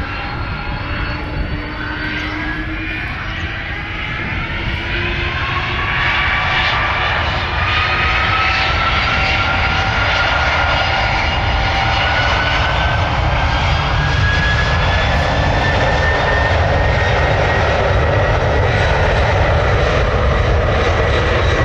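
Jet airliner's engines spooling up for takeoff: a whine that climbs steadily in pitch over a low rumble, which grows louder about six seconds in.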